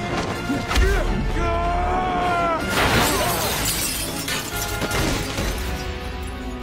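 A heavy impact about a second in, a strained cry, then glass shattering about three seconds in, all over a dramatic music score.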